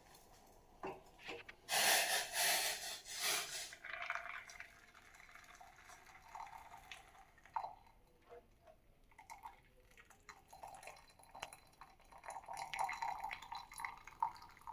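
Hot herbal tea poured through a strainer into a vessel: a couple of seconds of pouring liquid about two seconds in, then drips and light clinks of metal pots and the strainer, with more pouring near the end.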